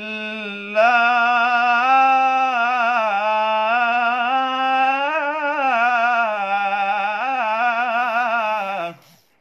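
A young man's solo voice in melodic Quranic recitation, holding the word 'lillah' in one long ornamented melisma that wavers in pitch. It swells about a second in and stops near the end.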